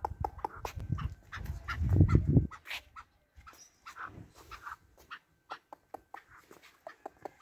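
Small white poodle making short, soft whimpers. A low rumble covers the first two and a half seconds, then stops.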